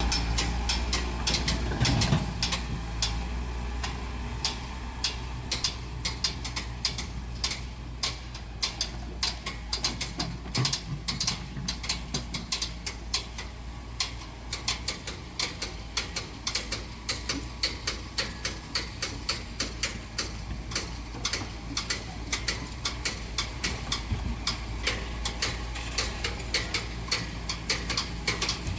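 Rapid, irregular clicking and clacking of small hard parts, several clicks a second, over a steady low hum.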